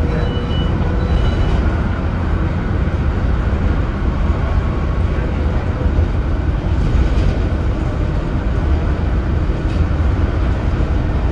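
Leyland Atlantean double-decker bus under way, its rear-mounted Leyland O.680 six-cylinder diesel running with a steady low rumble, along with road and body noise, heard from on board.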